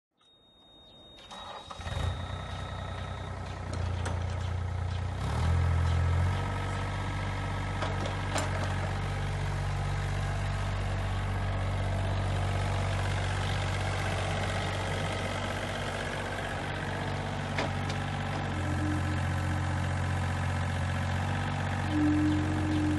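Yanmar ViO30 mini excavator's three-cylinder diesel starting within the first two seconds, under a high steady beep, then running steadily with a louder stretch a few seconds in as the machine slews and lifts its boom. The engine note rises again about two-thirds in, and a short higher whine comes near the end.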